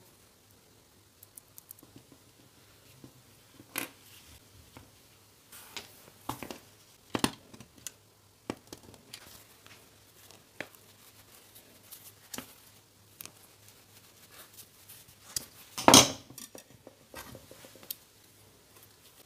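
Scattered small clicks, taps and scraping as hands handle metal prong snap-fastener parts and a piece of leather on a worktable, with one louder knock near the end.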